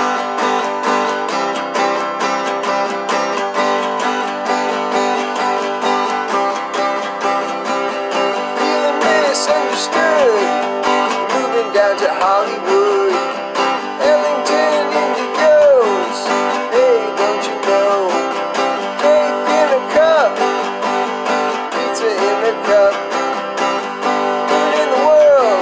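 Acoustic guitar strummed in a steady rhythm. About nine seconds in, a man's voice joins in, singing along over the strumming.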